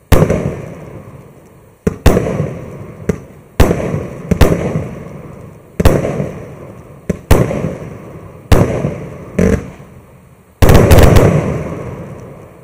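MAXSEM MC116 'Scintillant' 64-shot, 1-inch-calibre fireworks cake firing: about a dozen sharp reports, roughly a second apart, each trailing off over a second or so. Its final, louder volley comes near the end and dies away.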